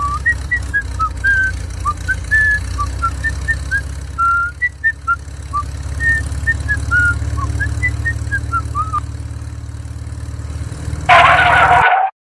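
A string of short whistled notes jumping up and down like a tune, over a steady low engine-like rumble. A loud burst of noise comes about a second before the end and cuts off abruptly.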